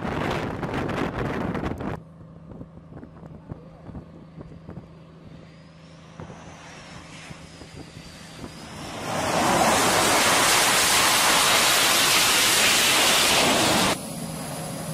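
Jet engine noise on an aircraft carrier flight deck. After a sudden cut about two seconds in it drops to a quieter steady hum with a faint whine, then about nine seconds in a loud jet roar builds and holds before cutting off abruptly near the end.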